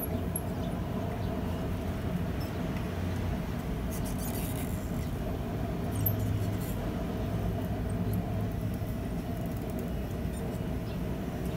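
Steady low hum, with faint scrapes and a light click about six seconds in, as a hot mild-steel rod is wound by hand around a mandrel clamped in a vise.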